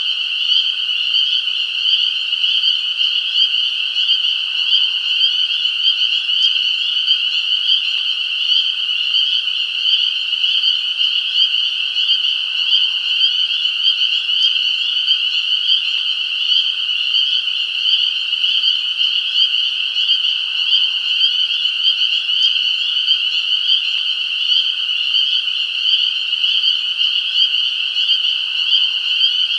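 A dense chorus of many frogs calling at once, merging into a steady, high-pitched trill with no breaks.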